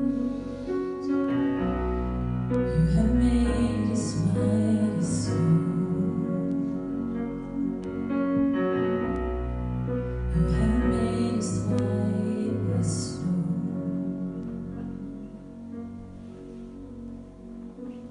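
Soft, slow music with long held notes, growing quieter near the end.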